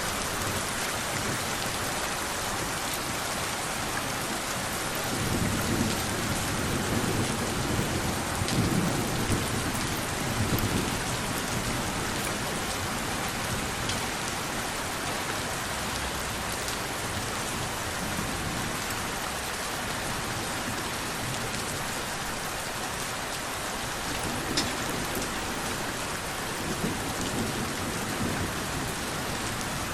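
Steady rain with low thunder rumbling twice, from about five to eleven seconds in and again near the end. A sharp drop tick stands out about two-thirds of the way through.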